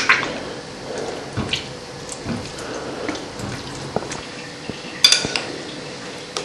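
Crockery and a spoon clinking as a plate of crushed tomatoes is handled and spooned onto pizza dough. There is a sharp clink of ceramic right at the start, another about five seconds in, and small taps and knocks in between.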